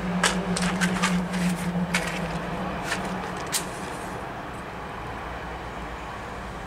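Light clicks and taps from handling the metal controls of a 2-inch scale Allchin traction engine model, heard over a steady low hum that fades away about three and a half seconds in.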